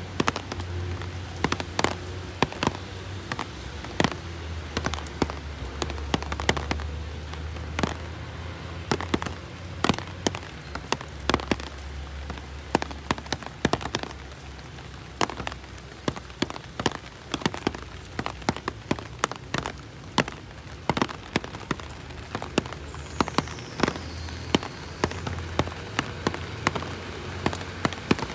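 Rain falling, with many sharp, irregular drops hitting close to the microphone over a steady patter and a low rumble underneath.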